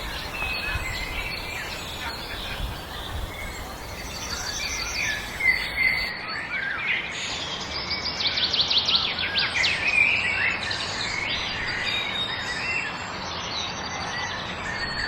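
Several wild birds singing and chirping together over a steady background hiss, with fast trills and short whistles. A low rumble under the birds stops about six seconds in, and the calls grow busier from there.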